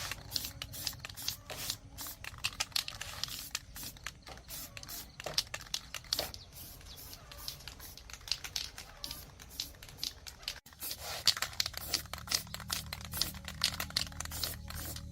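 Rapid, irregular scraping and clicking over a low steady hum, with a brief break about ten and a half seconds in.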